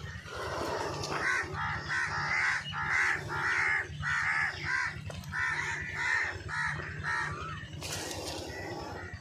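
A bird giving a rapid run of about a dozen short, harsh calls, lasting from about a second in until about seven seconds in.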